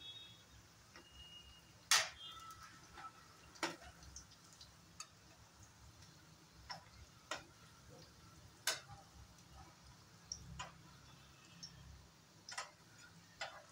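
Metal spatula clicking and tapping against a non-stick frying pan while dal vadas are turned and laid into shallow oil: about a dozen irregular sharp taps, the loudest about two seconds in.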